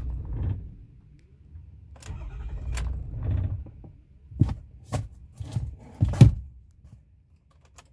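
The 6.4 L Power Stroke V8 diesel of a 2008 Ford F-450 being cranked by the starter in two short bursts without catching: the truck's intermittent crank-no-start fault. Four sharp thumps follow, about half a second apart.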